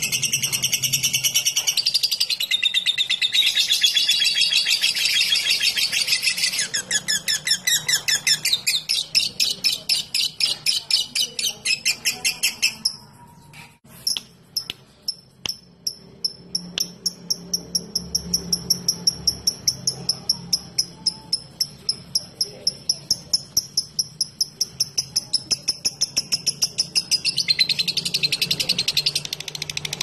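Fischer's lovebird singing the ticking and long trilling song fanciers call ngetik ngekek. It opens with a dense, high chattering trill that breaks into rapid pulsed notes, stops briefly about 13 seconds in, then gives a long run of high clipped ticks several a second. The dense chatter returns near the end.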